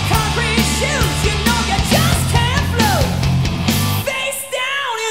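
Hard rock song by a full band: a heavy bass and drum backing under a high lead line that bends and slides in pitch. About four seconds in, the bass and drums drop out, leaving only the high parts sliding downward.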